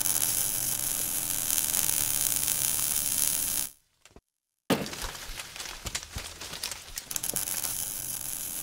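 Sound effect for an animated logo intro: a steady hiss for nearly four seconds, a break of about a second, then a crackle of many sharp clicks.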